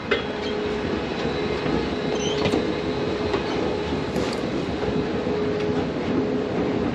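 Steady rumble of a moving vehicle heard from inside, with a steady hum and a few light clicks and rattles.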